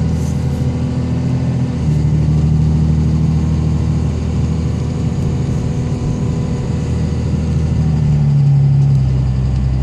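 5.9-litre common-rail Cummins diesel pulling uphill under load, carrying the fuel-injection rattle that is louder under load and does not change with revs. The injectors are the cause, and the noise was later cured with BD injectors. The engine note steps about two seconds in and again near the end.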